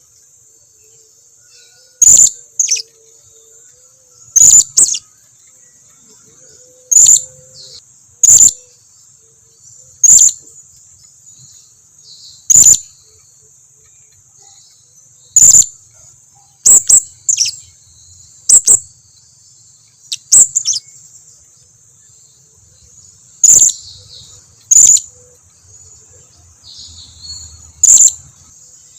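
Blue-crowned hanging parrot (serindit) calls: short, sharp, very high-pitched chirps, singly or in quick pairs, every one to three seconds. A steady high hiss runs underneath.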